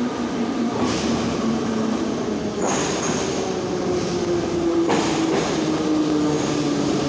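Kharkiv metro train pulling into the station: a steady rumble of wheels on rails with a motor whine that falls slowly in pitch as the train slows. Sharp knocks come about every two seconds, and there is a brief high squeal about three seconds in.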